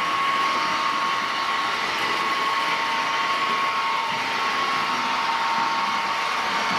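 Sound decoders of model V200 diesel locomotives playing a steady diesel engine sound through their small loudspeakers, an even whirring hum with a thin steady whine on top.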